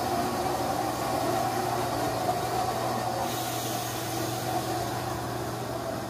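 Milking machine's vacuum pump running with a steady, unchanging hum.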